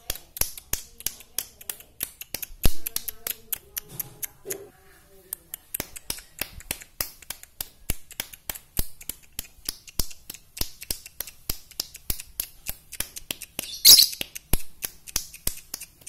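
Caged blue masked lovebird chattering: a fast, unbroken run of sharp clicking notes at about five a second, with a shrill high call right at the start and another near the end.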